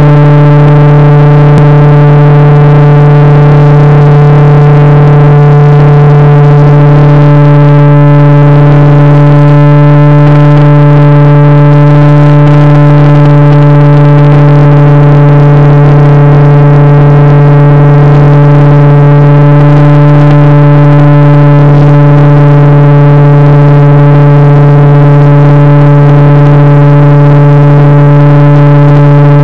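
A loud, distorted buzz at one steady pitch, picked up by the onboard camera of an FPV model plane in flight. It holds the same note throughout with no rise or fall.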